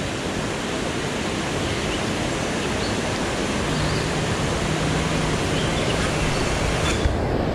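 Steady rush of flowing river water, an even, unbroken hiss.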